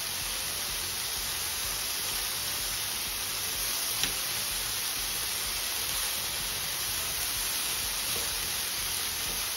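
Chicken sizzling steadily in an oiled frying pan, with one small click about four seconds in.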